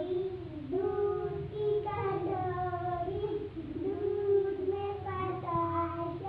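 Young children singing a ring-game song together in long held notes that step up and down.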